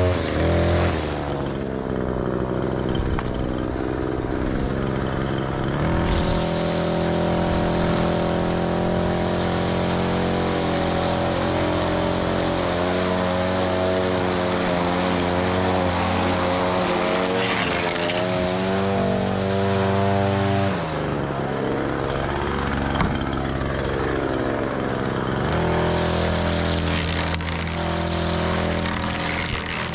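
Gas string trimmer engine running at high throttle while its line cuts grass. It eases down to a lower idle about a second in and again about two-thirds through, and revs back up a few seconds later each time.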